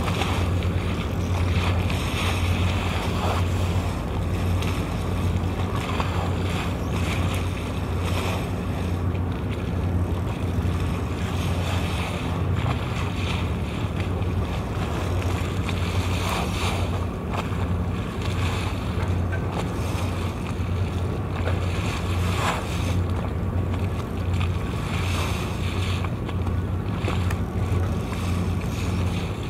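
A boat's engine drones steadily and low, over the rush of water and wind on the microphone.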